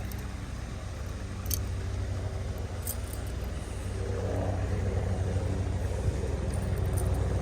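A steady engine hum that grows louder in the second half, with two faint clicks in the first half.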